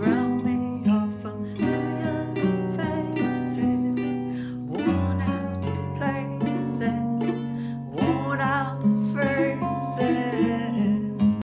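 Ukulele strummed in a steady rhythm while a woman sings along. The music stops abruptly near the end.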